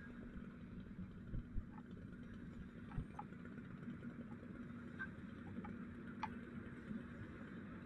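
A steady low engine hum with a faint hiss over it, and scattered light ticks throughout.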